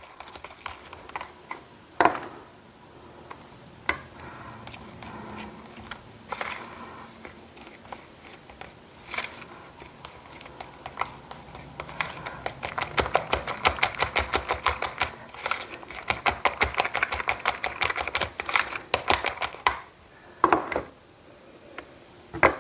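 Fork beating egg-and-flour dumpling batter in a small bowl, clicking against the bowl's sides. Scattered taps at first, then a fast, even run of clicks, several a second, from about halfway through for some seconds.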